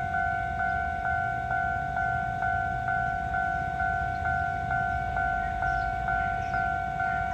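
Level-crossing warning bell ringing, a steady two-pitch tone struck again about twice a second, signalling an approaching train.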